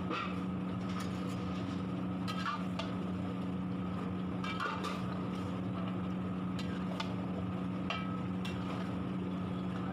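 Metal spatula scraping and clinking against a large metal kadhai while stirring a thick chicken curry, a stroke every second or so at irregular intervals. A steady low hum runs underneath.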